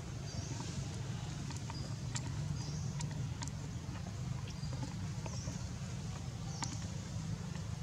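Steady low outdoor rumble with scattered sharp clicks and short high chirps repeating every second or two.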